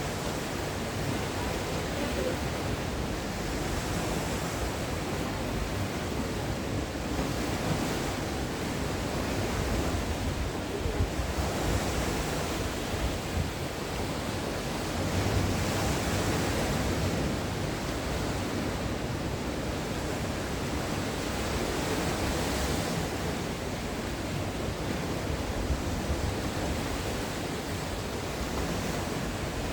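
Sea waves breaking and washing on the shore in a continuous rush, swelling and easing every few seconds, with some wind on the microphone.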